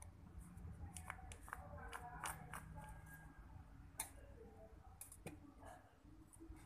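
Faint, scattered small clicks and light metal scrapes of a screwdriver working inside a YOLO spinning reel's metal rotor as the reel is taken apart to reach its broken clicker pawl.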